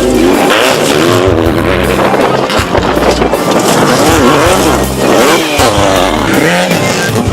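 Off-road race vehicle engines revving up and easing off again and again, over background music with a heavy bass line.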